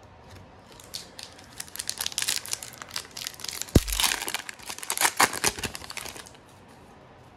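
A foil Pokémon booster pack wrapper crinkling and tearing as the pack is opened, in a rapid, crackly run lasting about five seconds. There is a single soft thump near the middle.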